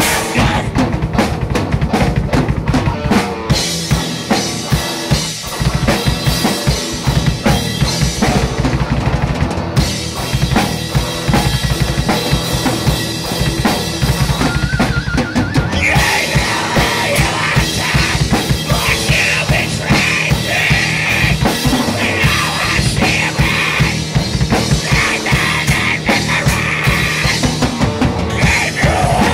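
Recorded metal/hard rock song with a busy drum kit, bass drum and snare hits driving it, and a brighter, higher part coming in about halfway through.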